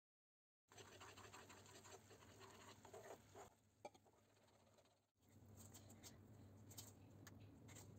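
Faint scratching and small ticks of a spoon stirring a pan of simmering white sauce, starting after a second of dead silence, with a brief break about five seconds in.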